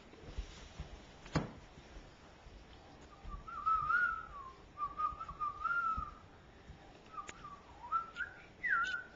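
Puppy whining: thin, high, wavering whines in stretches of a second or two, starting about three seconds in, the last one rising and falling back near the end. A single sharp knock comes about a second in.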